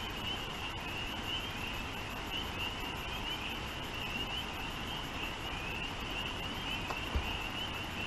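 Chorus of spring peepers calling from a marsh: many overlapping short, rising peeps, several a second, that run on without a break. A single low knock sounds about seven seconds in.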